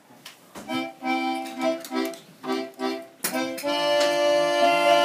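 Small red accordion playing a series of short, rhythmic chord stabs, then holding one long chord from a little past halfway.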